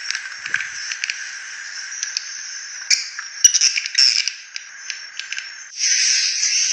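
Swiftlet lure recording: rapid chattering clicks and chirps of edible-nest swiftlets. A louder, denser chorus comes in near the end. The sound is described as rough and 'dirty', and is meant to call swiftlets in and get them to roost.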